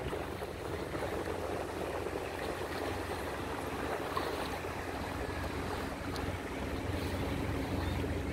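A boat's motor running with a steady low hum under an even wash of water noise.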